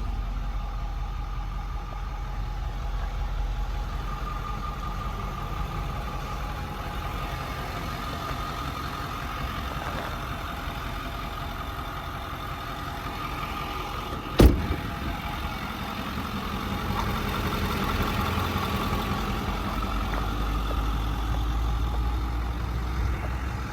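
Ford 6.4 Power Stroke V8 diesel idling steadily in a 2010 F550 truck, with one sharp knock about halfway through.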